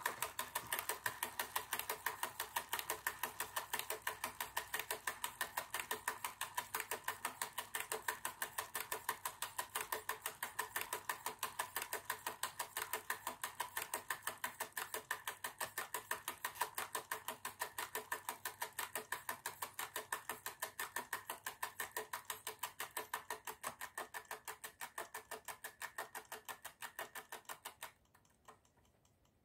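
The mechanism of a Hasler Bern RT9 railway tachograph running with a fast, even ticking. The ticking fades slightly and stops near the end, after the speed needle has come down to zero.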